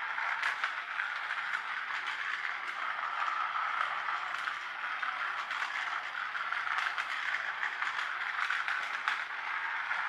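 Battery-powered toy helicopter running along its grooved plastic track: a steady small-motor whir with plastic rattling and scraping, dotted with quick clicks.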